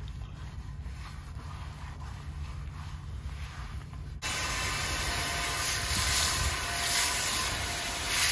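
A low rumble, then, a little over halfway through, a hose spray of water starts suddenly on the soapy carbon steel plow disc wok: a steady, loud hiss rinsing off the suds.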